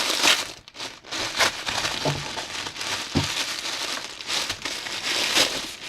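Paper or plastic gift wrapping crinkling and rustling in close-up as a package is handled and unwrapped, in short irregular crackles with a brief pause about a second in.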